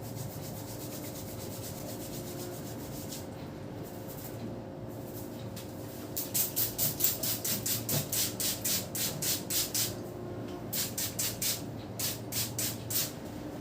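Hands rubbing briskly through hair and scalp during a head massage, in even rhythmic strokes about three or four a second. The strokes start about halfway through and pause briefly before resuming, over a steady room hum.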